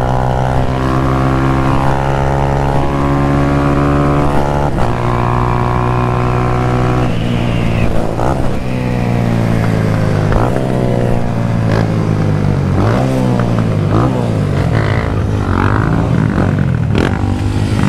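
Motorcycle engine heard from the rider's own bike. It holds a steady pitch for several seconds, then about halfway through its pitch starts climbing and dropping several times as the rider accelerates and changes gear.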